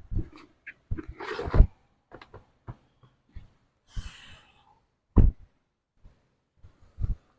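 Irregular knocks and thumps with brief rustling, the loudest thump a little after five seconds in.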